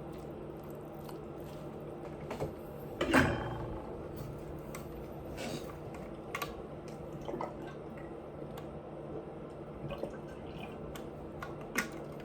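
A person eating: scattered soft mouth clicks and chewing, with one louder, brief noise about three seconds in.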